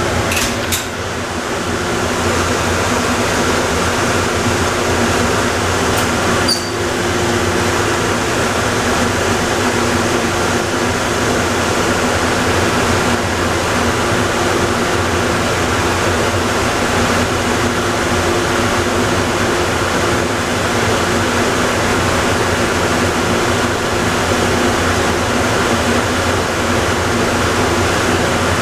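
Steady running noise of the Plane Train, Atlanta airport's automated people mover, heard at a constant speed with a hum of several steady tones. There is one short click about six and a half seconds in.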